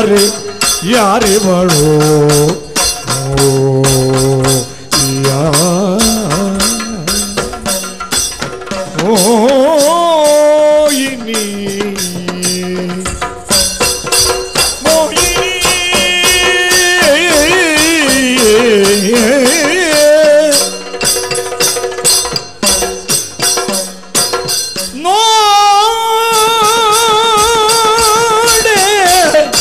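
Yakshagana ensemble music: a wavering, gliding melodic line over fast drumming and jingling metal percussion, ending on a long held note with vibrato.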